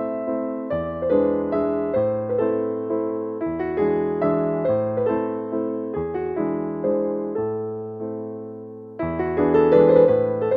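Background music: a gentle piano or electric-piano melody with chords, played in repeating phrases, dipping quieter before a new phrase begins about nine seconds in.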